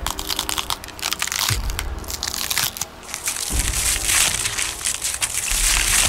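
Gore sound effects simulating flesh and bone being crushed and cracked: a dense, continuous run of crackles and sharp cracks, with deep thuds about every two seconds.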